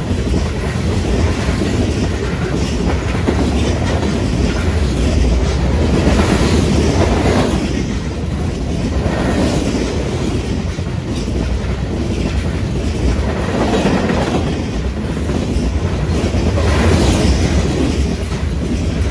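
Freight train cars (covered hoppers and tank cars) rolling past at close range: a continuous rumble of steel wheels on the rails, with a rhythmic clickety-clack that swells and eases every few seconds as the cars go by.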